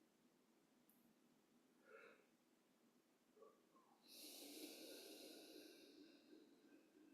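Near silence, broken about four seconds in by one long, audible out-breath that fades away over a couple of seconds.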